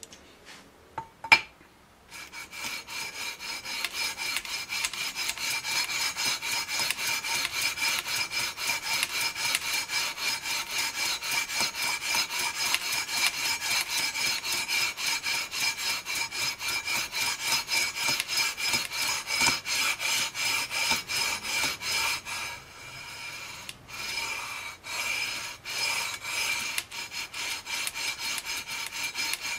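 Sandpaper on a long aluminium leveling beam scraping back and forth over the EVO gold fret wire of a guitar neck, leveling the frets. A couple of sharp knocks come first; quick, even strokes begin about two seconds in, ease off briefly near the three-quarter mark, then resume less evenly.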